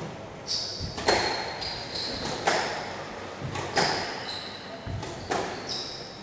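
Squash rally: four sharp smacks of the ball off the rackets and the walls, about a second and a half apart, ringing in the court. Short high squeaks from players' shoes on the wooden floor come between the shots.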